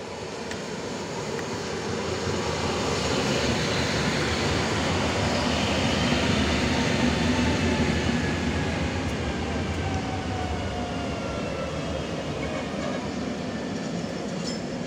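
EN57AL electric multiple unit running into the station and slowing. The running noise swells as it comes alongside, peaks about halfway through, then eases, while a whine from the drive falls steadily in pitch as the train slows to a stop.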